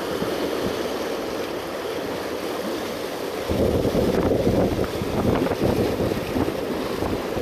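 Wind buffeting the microphone over the wash of sea waves; the wind gusts pick up about halfway through, adding a heavy rumble.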